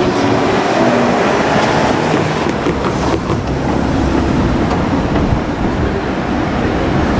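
JR Kyushu 817 series electric train running past on the track: a steady, loud rumble of wheels on rail, with the low rumble growing stronger about halfway through.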